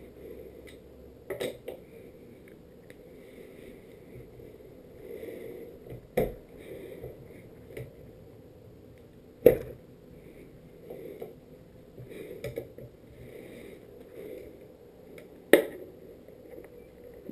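Hand-assembly noise of a skateboard: a few sharp knocks and clicks as a metal skate tool and the trucks and deck are handled, the loudest about halfway through, over a low steady rustle of handling.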